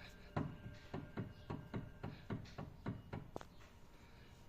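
A quick, even series of light knocks, about four or five a second, stopping about three and a half seconds in.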